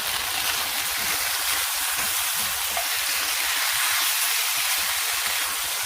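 Pork ribs with shiitake mushrooms sizzling steadily in a hot wok, with the sauce mix and brown sugar just stirred in.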